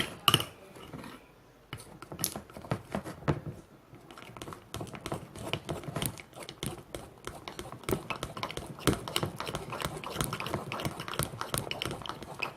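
Fluffy slime being stirred, a quick irregular run of sticky clicking and squelching that grows denser about four seconds in. The mix has gone stiff as the boric-acid water sets it.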